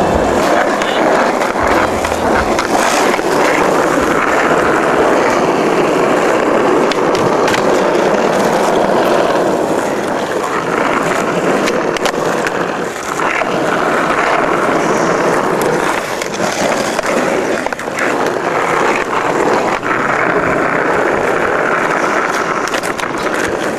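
Skateboard wheels rolling over rough asphalt, a steady gritty rolling noise, with sharp clacks now and then as the board pops and lands an ollie.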